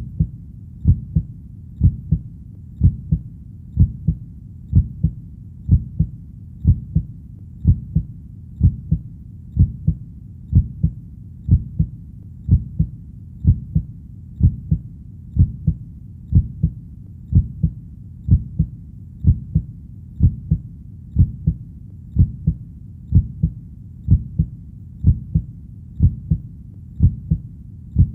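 Heartbeat sound beating steadily about once a second. Each beat is a low double stroke (lub-dub) over a faint low hum.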